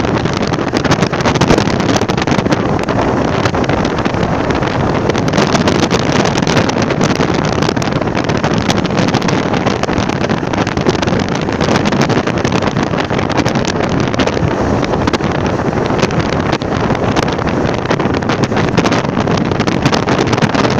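Strong wind blowing across the microphone: a loud, steady rush with constant buffeting crackle and no let-up.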